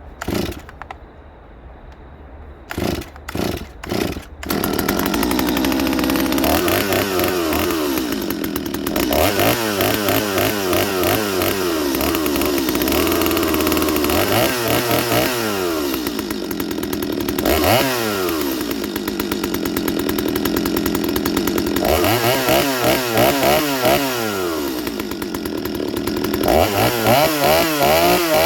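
Two-stroke chainsaw pull-started from cold with choke and decompression valve set: several quick yanks of the starter cord, then the engine catches about four seconds in and keeps running. The throttle is blipped repeatedly, so the engine revs up and falls back several times.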